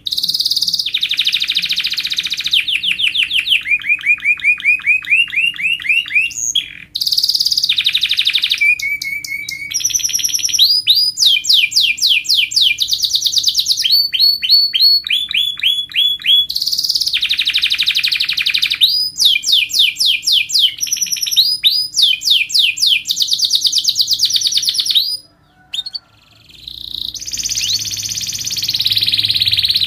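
Domestic canary singing a long song of tight, rapid trills (rolls) and runs of rising chirps, with a short pause near the end before it starts again.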